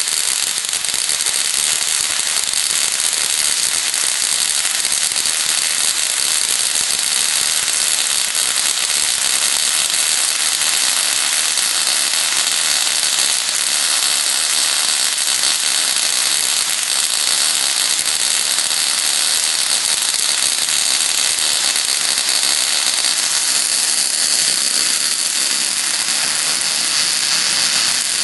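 Ruhmkorff induction coil running: a steady, dense crackle of high-voltage sparks tracking across the surface of an insulating block set in the spark gap, along with the sparking of the coil's vibrating interrupter.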